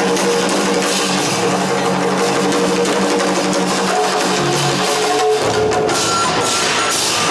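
Live music from an on-stage drum ensemble: drums struck in a steady stream over sustained melody notes. The low held notes drop out about five seconds in.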